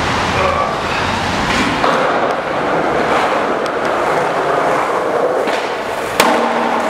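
Skateboard wheels rolling on a hard floor, then near the end one sharp metal clank as the board lands on a steel stair handrail, which rings on afterwards.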